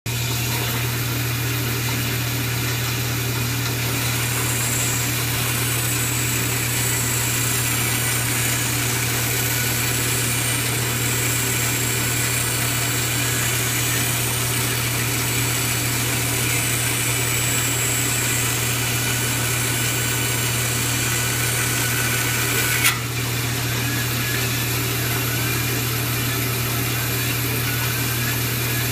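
Vertical bandsaw running with a steady low hum as its blade cuts through a paperback book. A single sharp knock sounds about 23 seconds in.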